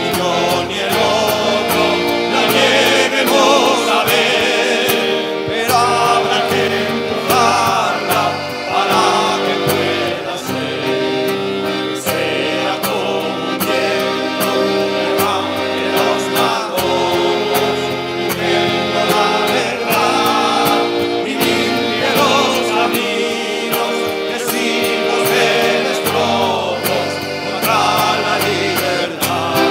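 Many voices singing a song together, backed by accordion and acoustic guitar.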